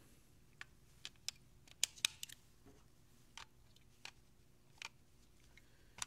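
AA batteries being pressed into the plastic battery compartment of a LEGO Mindstorms EV3 brick: a string of short, sharp clicks and taps, several close together in the first half and a few more spaced out later.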